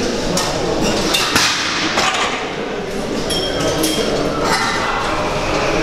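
Gym weight equipment clanking: a series of sharp metal knocks and clinks at uneven intervals, some ringing briefly, over a busy background.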